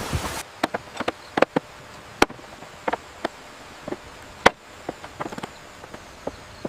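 A steady rush of noise cuts off suddenly about half a second in. Then comes an irregular run of sharp knocks and taps, about twenty of them, with two louder cracks.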